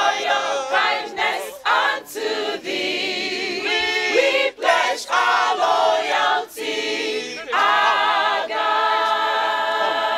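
A group of men and women singing together in chorus without accompaniment, moving through short sung phrases and then holding long notes over the last few seconds.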